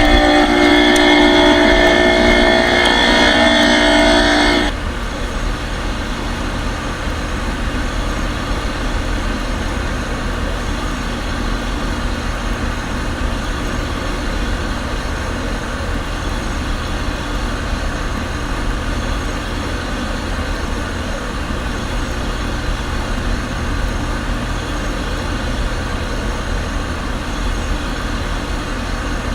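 2013 Payne PH13 heat pump outdoor unit running: a whine of several steady tones for the first four or five seconds that stops suddenly, then a steady whoosh with a low hum as the unit keeps running.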